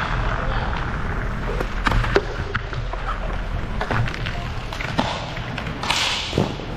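Roller hockey play on a plastic-tile rink: sticks and the puck knocking and tapping on the floor over the steady rumble of skate wheels. A brief scraping hiss about six seconds in.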